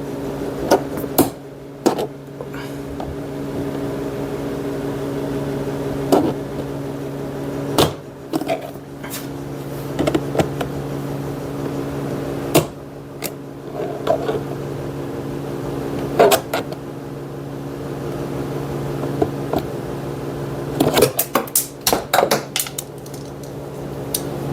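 A small flat-head screwdriver pries a plastic door trim piece off a 2013 Chevy Malibu, making scattered sharp clicks and snaps, with a quick run of clicks near the end as the trim's clips come free. A steady low hum runs underneath.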